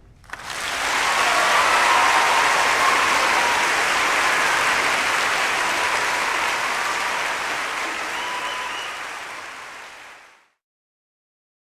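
Audience applause after a choral performance ends. It starts suddenly, holds steady, then fades out and stops about ten seconds in.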